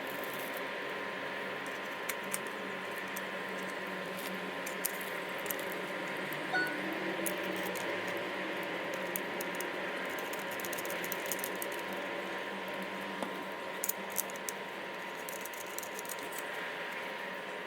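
Scattered small clicks and light taps, typical of computer parts and screws being handled, over a steady hum.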